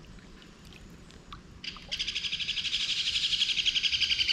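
Kingfishers chirping in a rapid, steady chatter of high notes that starts about two seconds in and grows louder.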